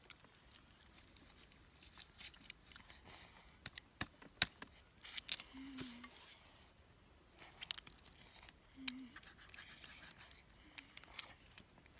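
A large knife cutting and scraping into a whole roasted duck: irregular sharp clicks and short scraping crunches of blade on crisp skin and bone.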